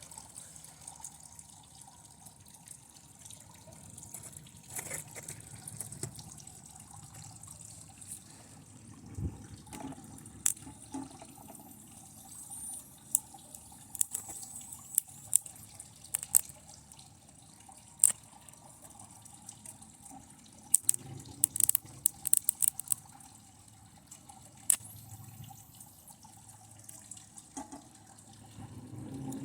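Scattered sharp crackles and pops over a faint hiss, from TV circuit-board parts sparking and burning under high current from a lead acid battery. The crackles come in a thicker cluster about two-thirds of the way through.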